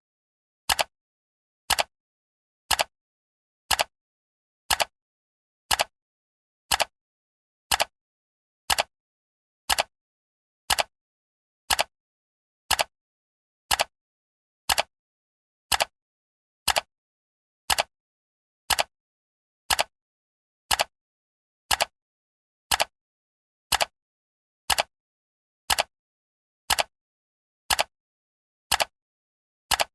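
Clock-style ticking sound of a countdown timer: one short, sharp tick each second, with silence between ticks.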